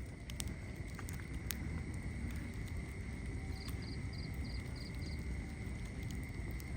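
Wood fire burning in a fireplace: a steady low rumble with scattered crackles and a few sharper pops. A faint steady high tone runs underneath, and a short run of six faint high ticks comes about midway.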